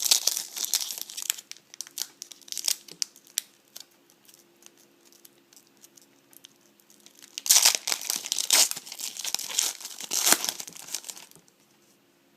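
A 2011 Upper Deck football card pack wrapper crinkling as it is handled, then torn open with a louder run of crinkling and tearing from about seven to eleven seconds in.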